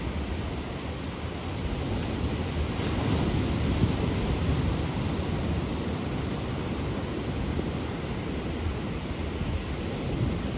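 Ocean surf washing in a steady roar of noise, swelling slightly a few seconds in, with wind rumbling on the microphone.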